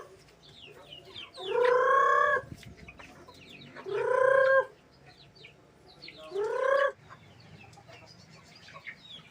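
Rhode Island Red chickens calling: three loud, drawn-out squawks, each a little rising in pitch and about two and a half seconds apart. Many short high peeps run under them throughout.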